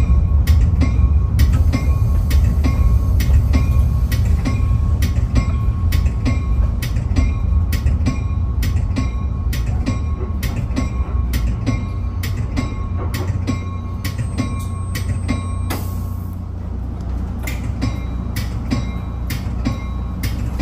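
Caltrain commuter train running along the track, heard from inside the passenger car: a heavy low rumble with a thin steady hum and sharp clicks, about three or four a second, that pause briefly about two thirds of the way through.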